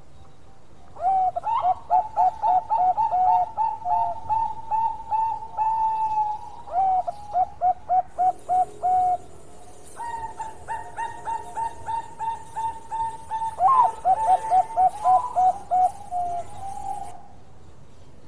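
Zebra dove (Bangkok-type perkutut) singing its staccato cooing song: quick runs of clipped coos in two bouts, the first starting about a second in and the second about ten seconds in.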